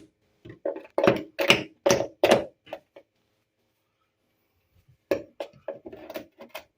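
Hammer blows on wood: a run of about six sharp knocks, a pause of about two seconds, then another run of lighter, quicker knocks.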